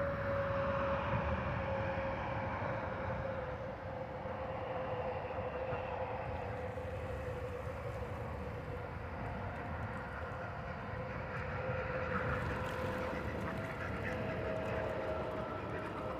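A steady distant engine drone with one tone slowly falling in pitch.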